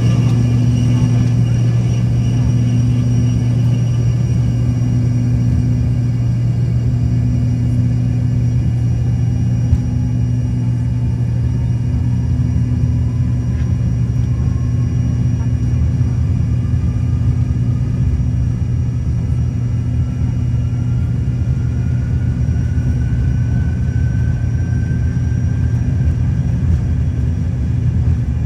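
Cabin noise inside an Embraer ERJ145 jet: a steady low drone from the turbofan engines, with a faint whine that slowly rises in pitch from about nine seconds in.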